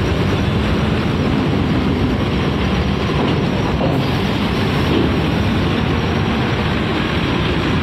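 Steady, heavy rumble of a large intercity bus driving past close by, its engine and tyres running without a break.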